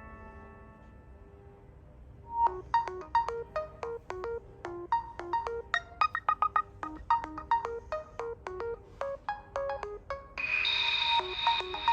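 realme C11 phone ringtones playing: a chime-like tone dies away in the first second, then about two seconds in the next ringtone starts with quick, short electronic notes in a bouncing, repeating melody, joined near the end by a brighter held layer.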